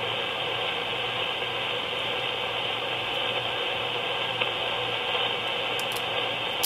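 Bitx20A 20-metre SSB kit transceiver receiving an empty stretch of band: steady hiss of band noise from its speaker with a faint low hum, and a couple of faint clicks near the end.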